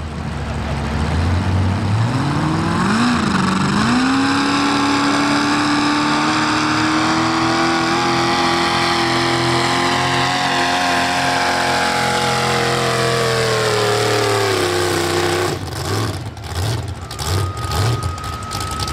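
Light modified pulling tractor's V8 engine revving up hard from low speed and holding high, slowly climbing revs under load through a sled pull. About fifteen seconds in the revs fall away and it drops to an uneven, popping run.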